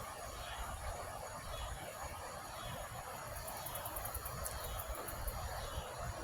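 Insects chirping in a high, steady drone, with a rapid run of pulses in the middle. Underneath is a steady rushing noise and a low rumble.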